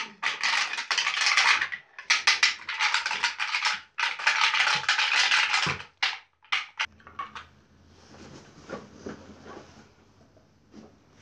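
Hand-held deer call blown three times to call in does: three long, raspy blasts of about a second and a half each, followed by a few short clicks.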